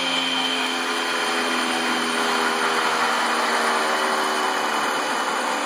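Electric-vehicle AC traction motor spinning under a DMOC645 inverter, a steady high whine over a lower hum.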